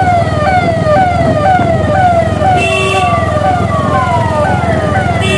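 Electronic vehicle siren sounding a fast repeating downward sweep, about two falls a second, over the rumble of a running engine.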